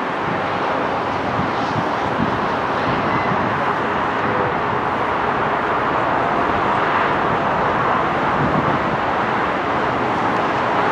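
Airbus A320-family airliner's jet engines: a steady, even noise as it lands and rolls out on the runway.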